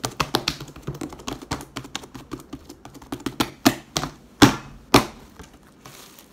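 Fingertips poking and pressing into a sheet of glitter slime, making a quick run of small sticky clicks and pops, several a second, with a few louder pops about four to five seconds in.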